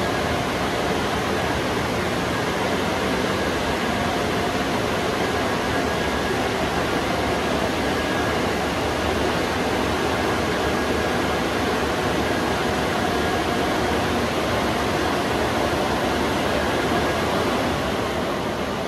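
Automatic car wash equipment running: a steady, even rush of noise with a faint high whine in it, easing off slightly near the end.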